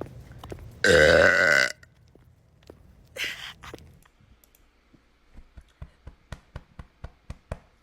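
A woman's deep, loud burp about a second in, lasting under a second. A short fainter sound follows, then a run of light clicks near the end.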